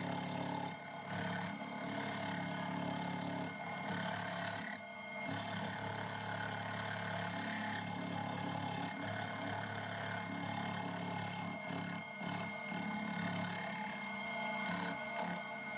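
Milling machine spindle running with an end mill cutting a recess into a lathe topslide: a steady motor hum under a fine hiss of metal cutting, dipping briefly a few times.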